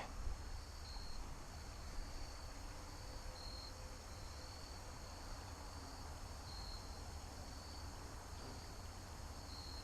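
Faint steady chorus of insects, a high thin trill that swells a little every second or so.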